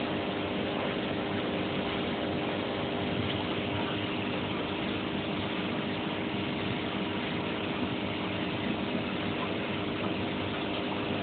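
Steady hum and hiss of a small motor running, with a few faint steady tones.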